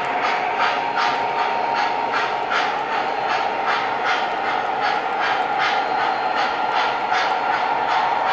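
MTH O-gauge model train, a diesel locomotive with passenger cars, rolling along three-rail track: a steady running hum with the wheels clicking over the track joints about three times a second.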